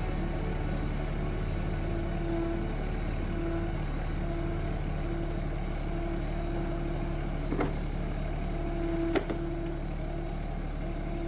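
Tractor engine running steadily while towing a loaded drag sled. Two sharp knocks come late on, about a second and a half apart.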